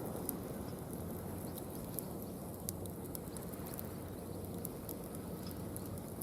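Mixed hardwood burning in a campfire stand: a steady low rush of flames with scattered sharp crackles and pops from the wood.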